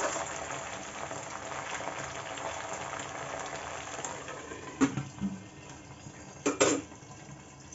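Boneless chicken pieces sizzling in hot oil in a kadhai. About five seconds in, a steel lid knocks onto the pan, knocks again a moment later, and the sizzle goes quieter and duller under the lid.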